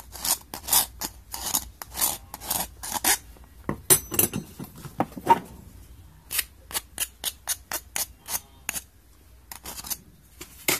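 A small file rasping back and forth along the freshly cut rim of a tomato paste can, knocking off the burrs: quick scraping strokes, two to four a second, broken about four seconds in by a brief metallic clinking, then a faster run of strokes and a few last ones near the end.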